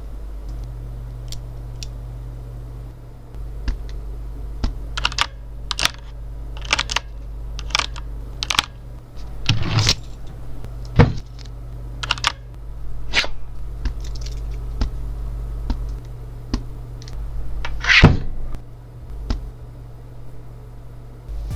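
A series of irregular clicks and knocks, a few louder than the rest, over a steady low hum.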